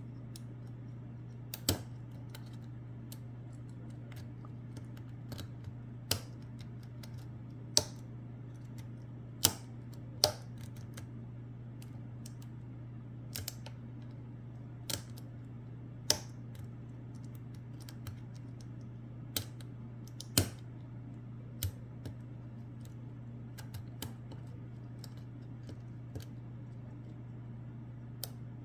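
Lock pick working the pins inside a Lockwood Twin padlock: sharp, irregular metallic clicks and ticks a second or several apart, over a steady low hum.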